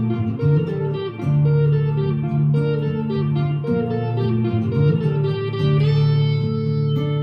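Vintage V100 electric guitar played through an amp's overdrive channel: a slow, moody rock part of held notes and chords, changing about once a second.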